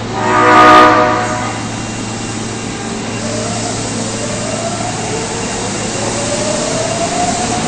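Osaka subway train 22962F sounding its horn once for about a second, a horn with an unusual tone that this trainset is known for. The train then pulls away, its motors giving a whine that rises steadily as it accelerates.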